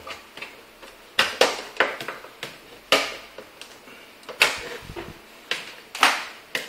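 Plastic clips of an LG Flatron W1934S monitor's front bezel snapping loose as the bezel is prised off by hand: a string of sharp plastic clicks and cracks at irregular intervals.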